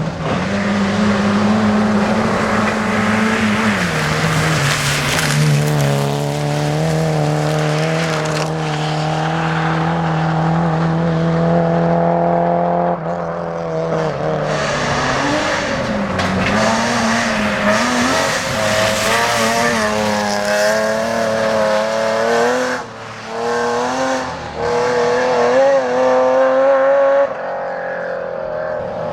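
Rally car engines at high revs on a tarmac stage, the pitch holding, stepping with gear changes and dipping briefly where the driver lifts off the throttle.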